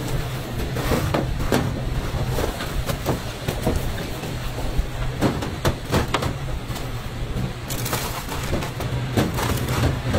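Cutlets being pressed by hand into coarse breadcrumbs and laid on sheet-metal trays: a crumbly rustling with scattered clicks and knocks against the metal, over a steady low hum.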